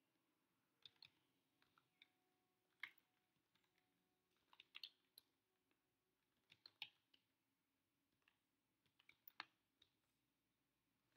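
Faint, irregular keystrokes on a computer keyboard: single clicks and short runs of a few key presses, separated by pauses.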